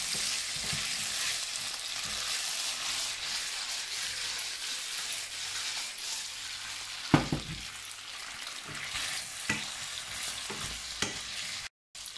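Beef pieces on toothpicks sizzling in hot oil in a wok while being stirred and turned with a wooden spatula, with a few sharp knocks of the spatula; the loudest is about seven seconds in. The sound cuts out for a moment near the end.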